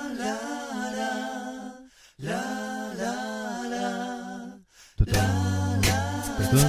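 Music: two wordless sung phrases, gliding up and down over a held low note, each about two seconds long with a short break between. About five seconds in, the full backing with a drum beat comes back in.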